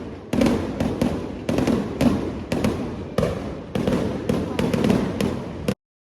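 Fireworks going off in quick succession, about two sharp blasts a second, each trailing off in crackle. The sound cuts off suddenly near the end.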